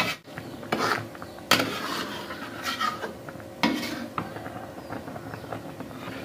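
A metal spatula scraping and knocking against an aluminium wok while stirring through a coconut-milk fish curry. There are several sharp clanks in the first four seconds, the loudest at about a second and a half and just before four seconds.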